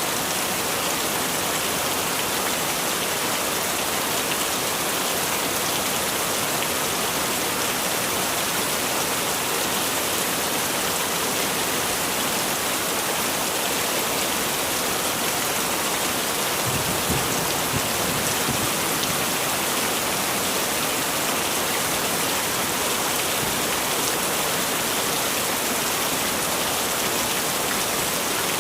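Heavy rain falling steadily, a dense even hiss of drops on surfaces. A brief low rumble comes about two thirds of the way through.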